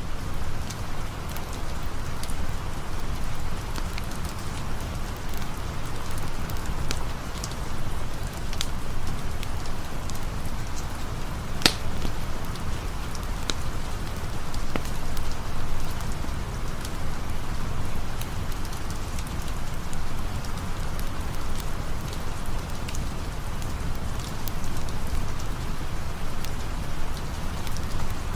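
Steady rain falling, mixed with a crackling campfire whose small pops come irregularly, with one sharper, louder crack a little before halfway.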